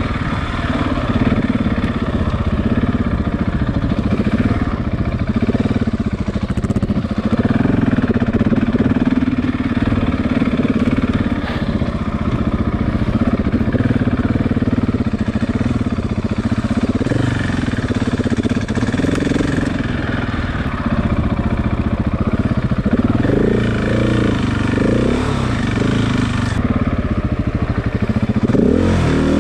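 KTM 690's single-cylinder engine running under load on a trail ride, its revs wavering up and down as the throttle opens and closes, with a few quick climbs in revs near the end.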